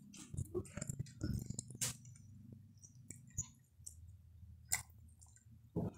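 Quiet eating sounds: scattered small clicks and mouth noises of someone chewing, with sharper clicks about two seconds in, near five seconds and just before the end.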